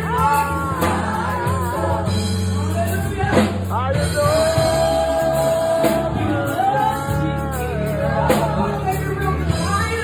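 Gospel choir and female lead singer performing with a live band of drums, bass and keys, the lead holding one long note about four seconds in.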